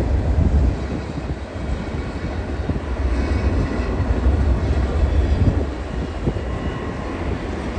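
Alaska Railroad freight train rolling past, a steady deep rumble of the cars on the rails.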